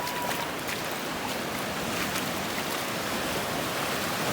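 Sea waves washing on a beach, a steady surf hiss, with some wind on the microphone.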